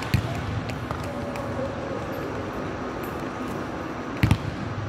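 Volleyball thuds on a gym court: one sharp hit just after the start, then a steady murmur of the hall with faint voices, and two quick sharp thuds near the end.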